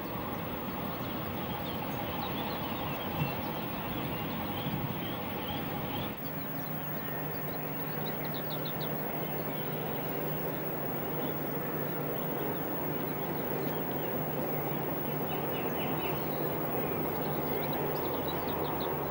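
Birds chirping over a steady outdoor rumble. From about six seconds in, an Intercity train passes along the track, adding a steady low hum.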